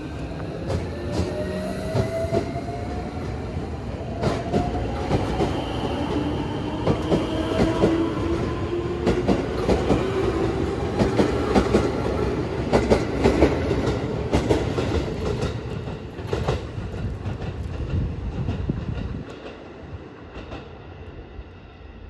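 Electric train running and picking up speed: the motor whine rises slowly in pitch while the wheels clack over rail joints. The rumble drops away sharply a few seconds before the end.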